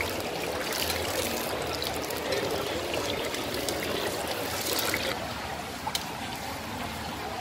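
Hot oil sizzling and crackling as Teochew meat puffs deep-fry in a wok, with scattered sharp crackles; the sizzle drops a little after about five seconds.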